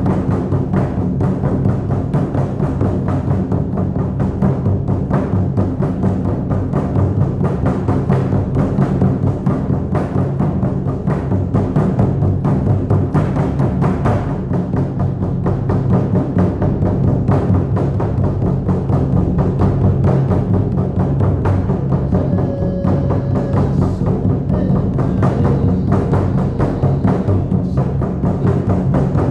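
Shamanic drum beaten in a fast, steady, unbroken rhythm, with a deep booming tone that rings on between strokes.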